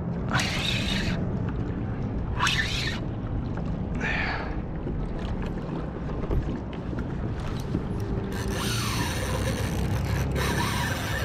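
Shimano Stradic 4000 spinning reel whirring in short spells while a big jack crevalle is played on light braid from a kayak. Under it is a steady rumble of wind and water against the hull.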